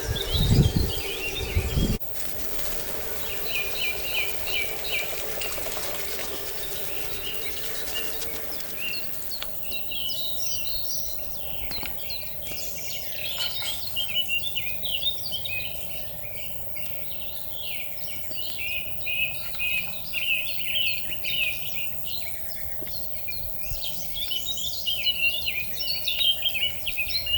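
Songbirds singing outdoors: a few repeated chirping phrases at first, building to a dense chorus of many overlapping birds from about ten seconds in. A loud low rumble fills the first two seconds.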